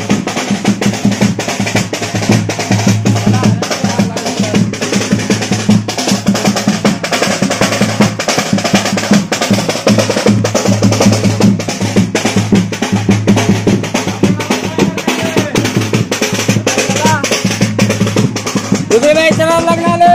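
Drums playing a fast, steady beat, loud and continuous, with a voice calling out near the end.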